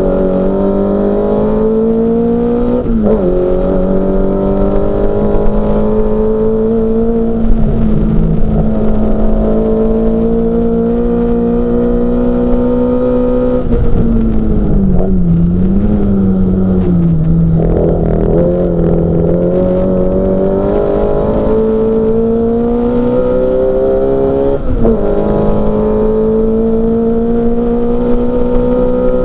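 Classic Mini Cooper S's four-cylinder A-series engine at racing speed. Its pitch climbs steadily and drops sharply at upshifts about 3 seconds in and again near the end. Around the middle the pitch falls and wavers as the car slows for a corner, then climbs again.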